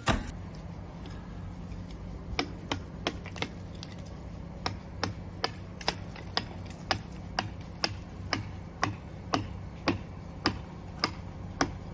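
A run of sharp clicks or knocks, about two a second, starting a couple of seconds in, over a steady low hum.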